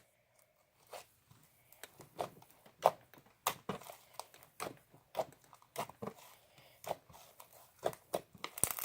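Slime being squished and stretched by hand, giving irregular sticky crackles and sharp little pops, several a second.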